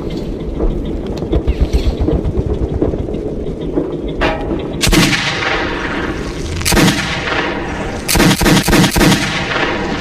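Revolver gunshots: two single shots, each with a ringing tail, about five and seven seconds in, then a quick string of about four shots near the end, over a low rumbling background.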